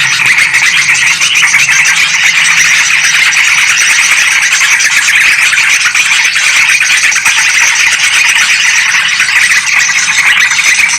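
Dense, unbroken chatter of yellow-vented bulbuls and sooty-headed bulbuls calling agitatedly, a loud bird-lure recording used to draw in bulbuls.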